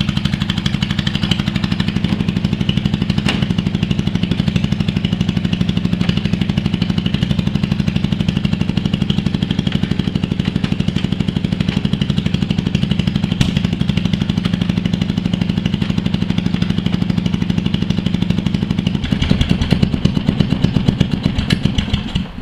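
Toro Wheel Horse 1232XL ride-on mower's engine running steadily with its exhaust pipe missing, so it is really loud, unmuffled and sounds dreadful, while the mower is driven back and forth. About nineteen seconds in the beat slows to a lumpier pulsing.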